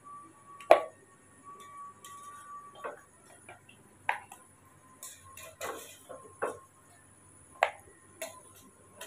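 Metal spoon knocking and clinking against a stainless steel pot and a plastic plate while boiled potato pieces are scooped out, about seven separate knocks with the loudest a little under a second in. A faint steady whine runs underneath for the first three seconds.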